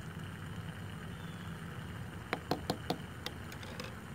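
Light clicks and taps against a stainless steel cup, about four in quick succession a little past halfway, then a few fainter ones, as a paper-towel strainer is worked into the cup with a plastic spoon. A steady low rumble runs underneath.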